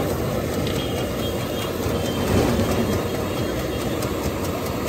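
Steady roar of a high-pressure gas burner under a steel frying pan, with oil bubbling and sizzling in the pan.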